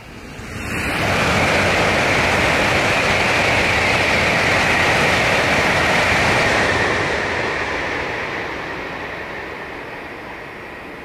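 Tokaido Shinkansen high-speed train passing at speed on a viaduct: a rushing roar that builds quickly about half a second in, stays loud for about six seconds with a high whine that drops slightly in pitch, then fades away as the train recedes.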